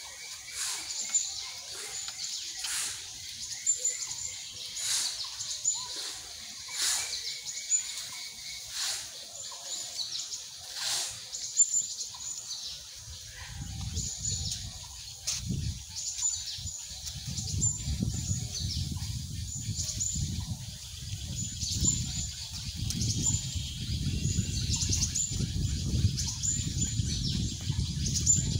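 Birds chirping and calling in the trees, many short high calls. In the first half a sharp sound repeats about every two seconds. From about halfway on, a low rumble joins the calls.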